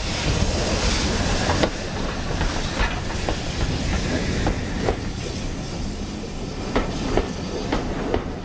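BR Standard Class 4MT 2-6-0 steam locomotive No. 76079 and its train rolling into a station, steam hissing for the first second or two, then the wheels clicking over rail joints as the coaches pass.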